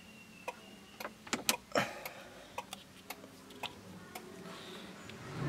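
Faint clicks and ticks inside a car's cabin, with a cluster of louder knocks about a second and a half in.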